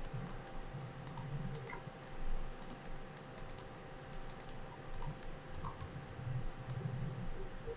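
Faint computer mouse clicks, a few scattered single clicks, over a low steady hum.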